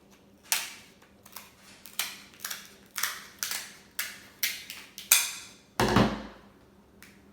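Close-miked eating of a seafood boil: a run of sharp, wet crackles, about two a second, with one heavier, deeper thump about six seconds in.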